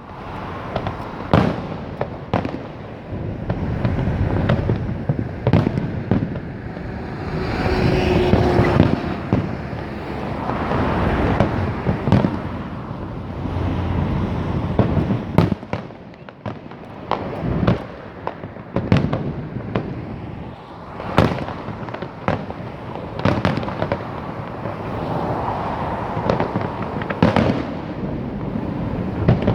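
Fireworks display: many sharp bangs at irregular intervals, one every second or so, over a continuous rumble and crackle of bursting shells.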